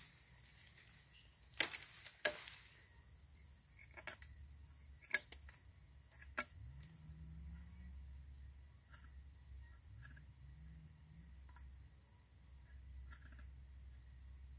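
Two sharp machete chops into a sapling in the first few seconds, then a steady high drone of insects, with light clicks and ticks as a knife works a piece of wood.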